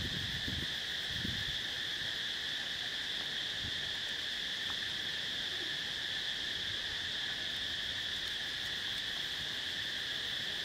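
Insects droning in a steady, unbroken high-pitched chorus.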